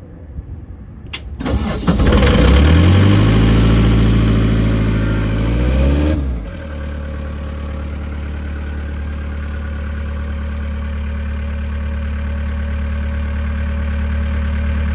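Diesel engine of a towable Atlas air compressor starting: a click about a second in, a brief crank, then it catches and runs loud and fast for about four seconds. About six seconds in it drops suddenly to a steady, quieter run that holds to the end.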